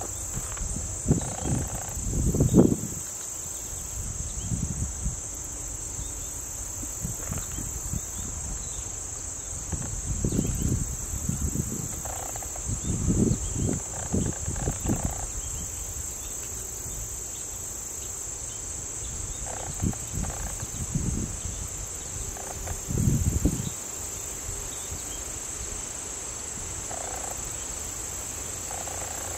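A steady, high-pitched chorus of insects, with wind buffeting the microphone in low gusts about five times.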